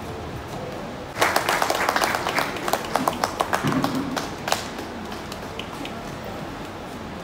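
Guests applauding, a burst of clapping that starts about a second in and dies away after a few seconds.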